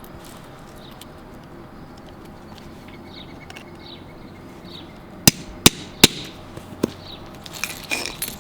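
Three sharp hammer strikes in quick succession, a little past halfway through, then a lighter fourth: a hammer driving a setting punch to crush a snap rivet through fabric edging.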